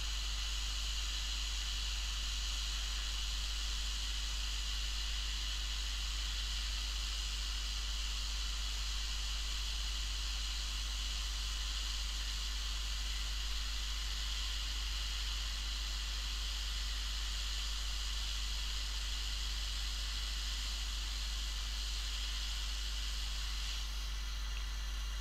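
Hot air rework station blowing a steady hiss of hot air onto a hard drive controller board to melt the solder and lift off the controller chip. Near the end the hiss dulls as the nozzle is pulled away.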